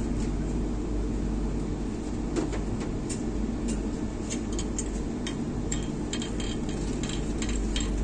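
Steady low hum of a stationary train carriage, with scattered light clicks and ticks from about three seconds in.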